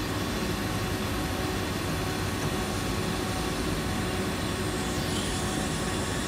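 Wire EDM machine running a cut, a steady hum and hiss from its flushing water, wire feed and spark power all on together.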